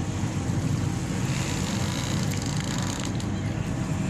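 Steady low drone of a purse-seine fishing boat's engine and machinery, with an even hiss over it and a few faint clicks.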